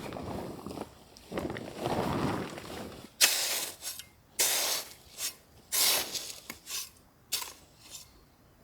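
Gritty scraping strokes of sand on brick paving: a softer rustle first, then from about three seconds in a run of five sharp, short scrapes, one every second or so.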